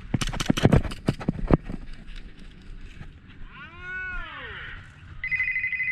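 A quick, irregular string of about ten airsoft gun shots in the first second and a half. About three and a half seconds in, a pitched call rises and then falls in pitch, and a steady high beep starts near the end.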